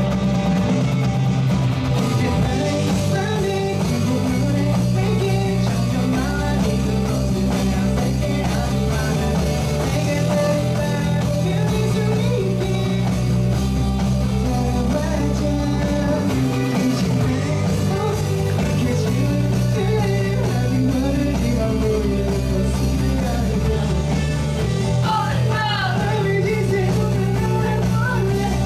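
Live rock band playing a song, with a singer over electric guitar, bass and drums.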